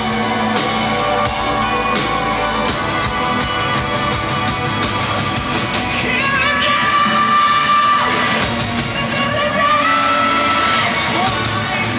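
Rock band playing live in a large hall, with electric guitar, bass and drums. A singer holds long, wavering notes in the second half.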